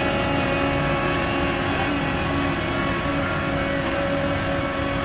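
Asphalt paver's engine running steadily, a constant machine drone with several held tones and no change in speed.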